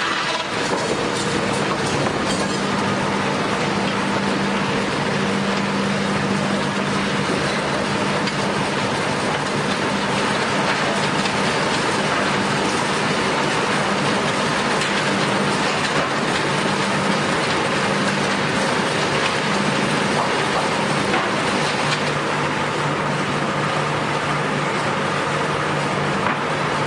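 Heavy wood-processing machinery running continuously: a dense mechanical rumble and clatter with a steady engine hum that drops in pitch about five seconds before the end.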